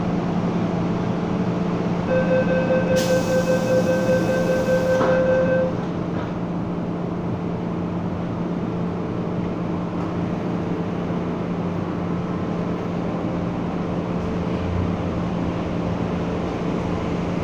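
MTR M-Train door-closing warning: a rapid beeping tone from about 2 s in, lasting some three and a half seconds, with a hiss partway through, as the doors shut. Afterwards the stopped train's steady equipment hum continues.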